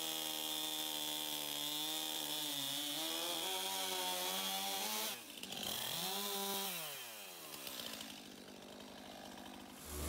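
Stihl two-stroke chainsaw cutting into an ash log at full throttle for about five seconds. It briefly drops off, revs up and down once more, then winds down to idle.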